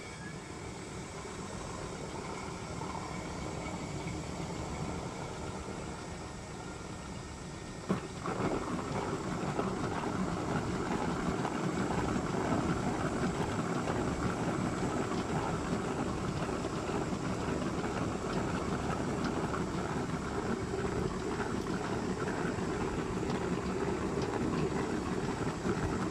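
Homemade chicken plucker's electric motor spinning its base plate. About eight seconds in there is a knock, and the noise turns louder and rougher as a volleyball tumbles against the spinning plate and the rubber plucking fingers.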